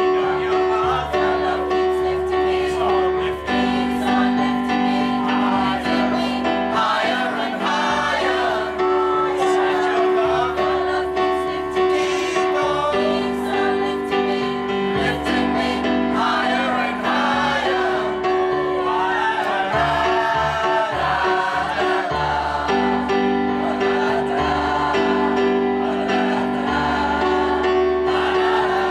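Mixed choir of men's and women's voices singing in parts, with sustained chords from an electric keyboard accompaniment.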